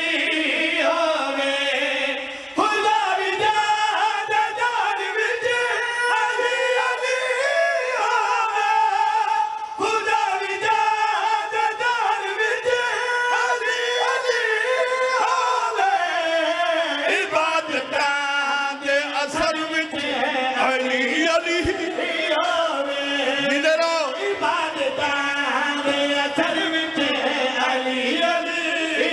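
Many men's voices chanting and singing together in long, held lines: a loud devotional group chant.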